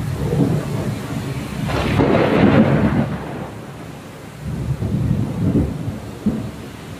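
Thunder rumbling over falling rain. The rumble swells loudest about two seconds in, then rolls again more deeply a couple of seconds later.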